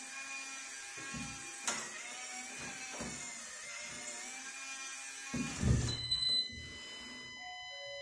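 SwitchBot smart lock's small geared motor whirring steadily as it turns the door's thumb-turn to unlock, stopping about six seconds in with a couple of knocks as the cylinder reaches the unlocked position.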